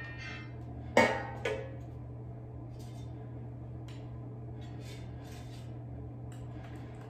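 Air fryer basket set down on a countertop with two sharp knocks about a second in, then a few faint light clatters as toast slices are lifted out and laid on a plate, over a faint steady low hum.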